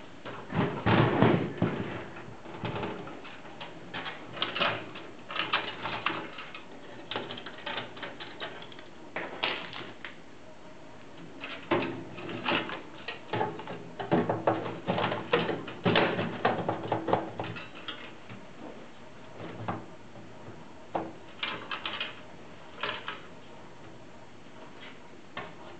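A hard drive being slid and worked into a computer's drive bay: irregular clicking, knocking and scraping as it is pushed and shifted until its holes line up.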